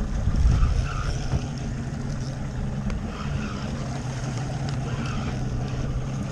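Outboard motor running steadily with a low hum, under wind and water noise on the boat, with a low thump about half a second in.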